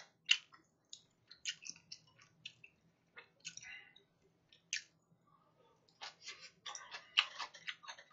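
Eating sounds: a scatter of short, irregular clicks of metal chopsticks against dishes, with chewing, growing denser about six to eight seconds in.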